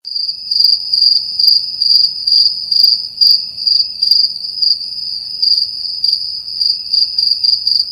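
Crickets chirping as a sound effect: a steady high-pitched trill that swells in regular pulses a little over twice a second.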